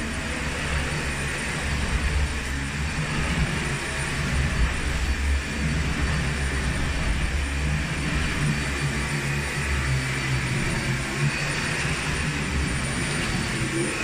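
Dyson Animal Ball 2 (CY24) upright vacuum cleaner running on carpet, its motor giving a steady high whine over a low rumble that swells and eases as it is pushed back and forth.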